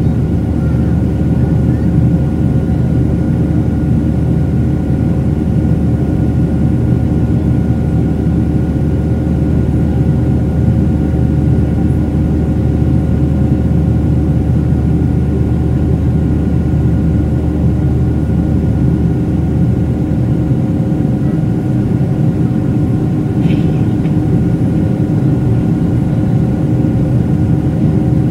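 Steady cabin drone of a Boeing 737 climbing after takeoff, its jet engines and the rushing air heard from inside the cabin. A low, even rumble carries a few faint steady tones.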